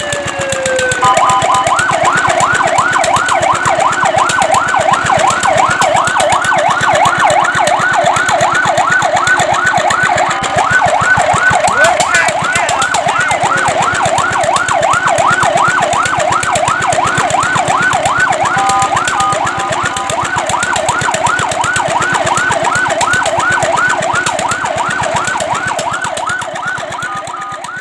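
Fire truck siren sounding a rapid yelp, its pitch sweeping up and down over and over, with a brief steady tone change about a second in and again about two-thirds of the way through. It fades out near the end.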